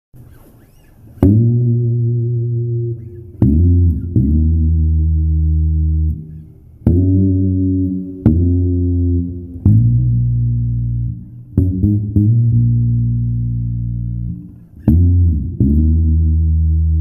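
Electric bass guitar playing a slow intro line: about ten low plucked notes, each held for one to three seconds, some following close behind one another.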